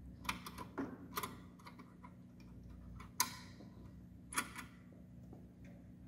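Sharp small clicks and taps of hard plastic and metal as the bulb, its wire lead and retaining clip are worked in the back of a Fiat Punto headlight housing: a quick run of clicks in the first second and a half, then two louder single clicks, about three and four and a half seconds in.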